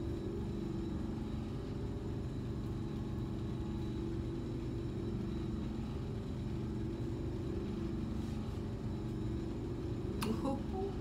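Steady low machine hum made of several even tones, with a short noise about ten seconds in.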